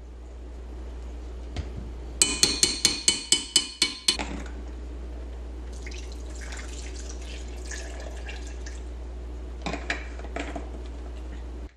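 Plant milk poured from a bottle into a glass blender jar, a splashing fill lasting a few seconds past the middle. About two seconds in there is a quick run of about nine sharp clinks, the loudest sound here, and near the end a few clicks as the bottle is capped.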